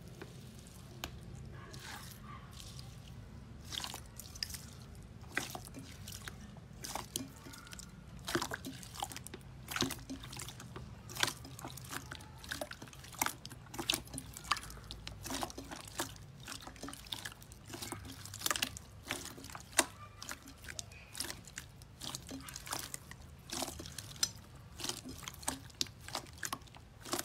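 Hands squeezing and kneading slime: a stream of sticky, wet clicks and pops as air pockets in the slime burst. The pops are sparse at first and come thick and fast after about eight seconds.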